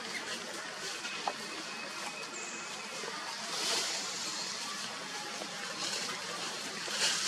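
Outdoor forest ambience: a steady hiss with a few brief rustles, a faint short high tone and a single small click.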